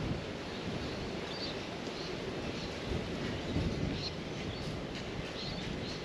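Steady outdoor background rumble and hiss, with a few faint, brief high chirps scattered through it.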